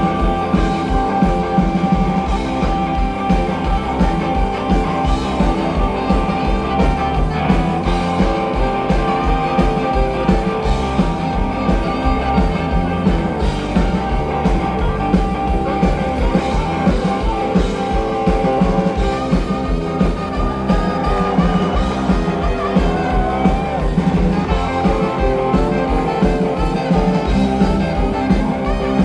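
A live rock band playing loud, with an electric guitar over a steady drum beat and no vocals.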